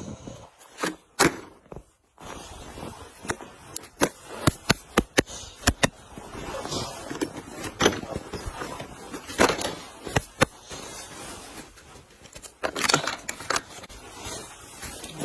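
RC drift car's hard tyres scraping and skittering over pavement, with many irregular sharp clicks and knocks.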